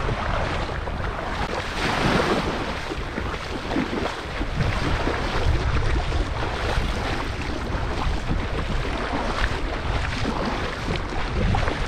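Wind buffeting the microphone over water washing and splashing around a small boat at sea, a steady gusty rush heavy in the low end.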